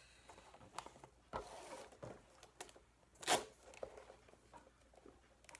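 Duct tape being pulled off the roll and pressed around a plastic bottle: faint rasping and crinkling handling noise, with one sharper crackle about three seconds in.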